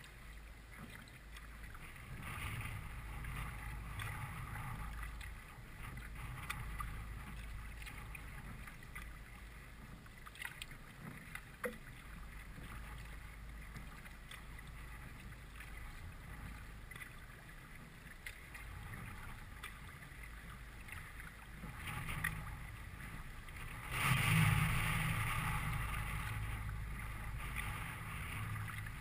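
Kayak being paddled on moving creek water: paddle strokes splash and drip, and water washes along the hull, under a low rumble of wind on the microphone. A louder rush of noise starts suddenly near the end.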